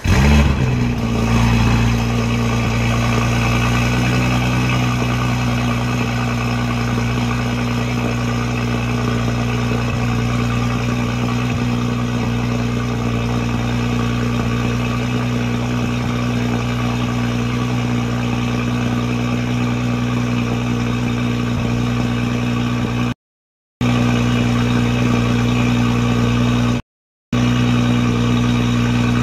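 2019 Audi SQ5's V6 engine, heard at the exhaust with aftermarket HJS 200-cell catalysts and the stock cat-back. The revs flare briefly just after start-up, then settle into a steady idle. The sound drops out twice briefly near the end.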